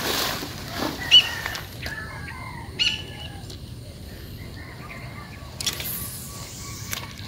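Footsteps swishing through tall grass for the first second or so. After that it is quieter, with birds chirping a few short times.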